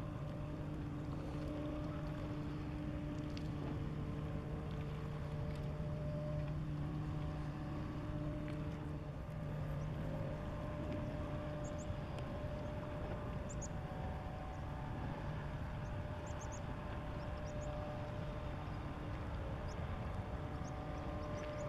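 Fishing cutter's diesel engine running steadily as the boat passes, with wind and water noise. Its low hum fades and a higher tone takes over about nine seconds in, and a few faint high chirps come in the second half.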